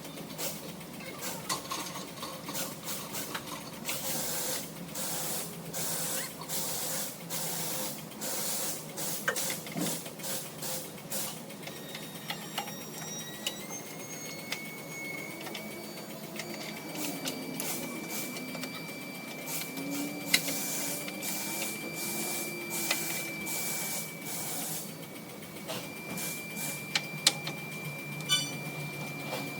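Hand tools working on an engine oil cooler line fitting: a run of quick, repeated scraping strokes, then scattered clicks and metal knocks. A steady high whine sounds from about halfway on.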